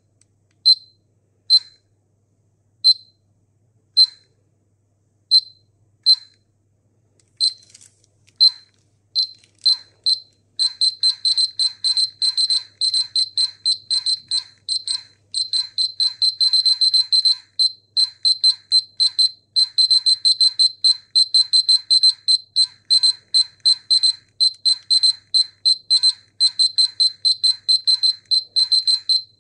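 Polimaster PM1703-GNA dosimeter beeping: short high-pitched beeps, irregular and about one a second at first, quickening about ten seconds in to a rapid stream of several beeps a second, the sign of a rising radiation count rate.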